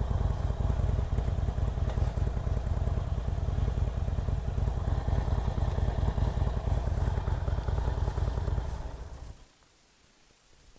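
2016 Harley-Davidson Roadster's air-cooled 1200 cc V-twin running steadily with a fast, even pulse, then switched off a little after nine seconds in, dying away to quiet.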